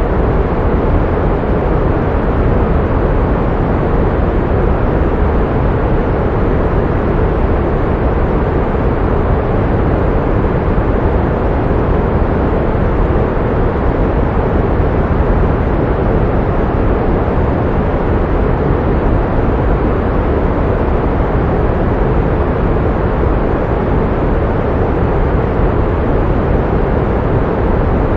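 Steady pink noise: an even, unchanging rushing hiss, heavier in the low end than the high.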